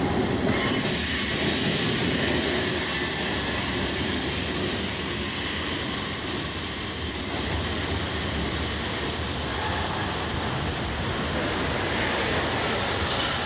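A freight train of hopper cars rolling past at a steady speed: a continuous rush of steel wheels on the rails.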